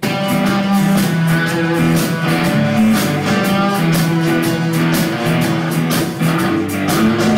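Rock band playing live through a PA: electric guitars and bass over a steady drum beat, starting abruptly.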